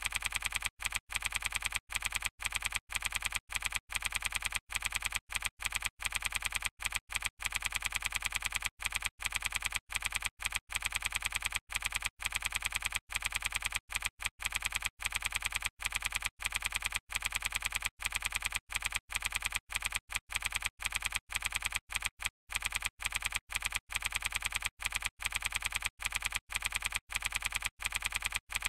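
Typing sound effect: rapid, steady key clicks, broken now and then by short pauses, played as on-screen text is typed out.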